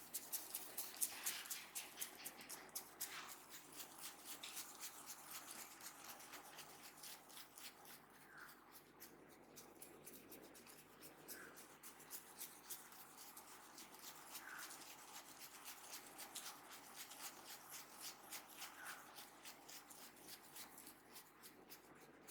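Hands massaging an oiled head of hair close to the microphone: quiet, irregular crackling and rubbing of fingers through the hair and over the scalp, several small clicks a second.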